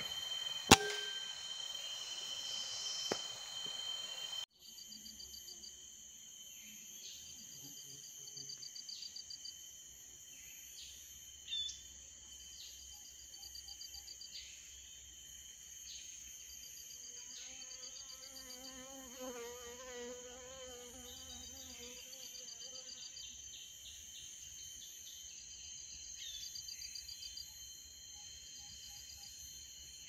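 Forest insects chirping: repeated short trains of rapid high pulses over a steady high-pitched buzz, with a lower wavering call from about midway for several seconds. Near the start there is a single sharp click.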